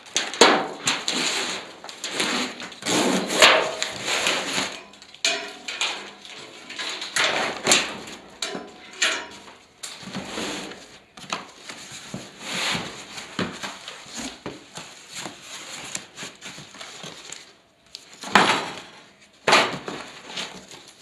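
Cardboard box being unpacked by hand: plastic strapping pulled off, then cardboard scraping, rustling and knocking as the box is handled and its flaps are torn open, in a run of irregular scrapes with short sharp knocks.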